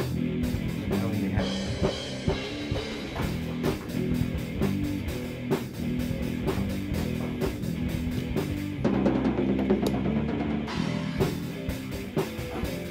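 Background music with a drum-kit beat and guitar.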